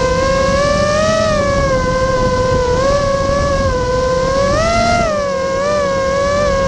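Vortex 250 Pro FPV racing quadcopter's motors and propellers whining, the pitch wavering up and down, with a brief rise about five seconds in.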